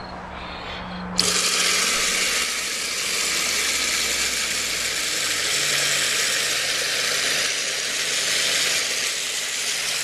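Homemade toilet flushing: water rushes into the bowl, starting suddenly about a second in and running steadily, with a faint low hum at the start.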